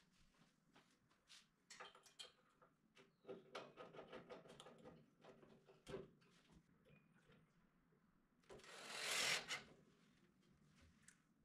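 Cordless drill running in one short burst of about a second near the end, after a few faint knocks and rattles from handling the cabinet hardware.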